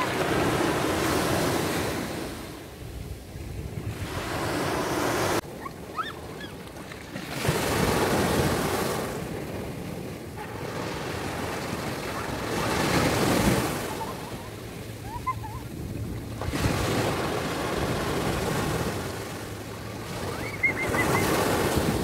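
Small sea waves breaking and washing up onto a sandy beach. The surf swells and fades every few seconds.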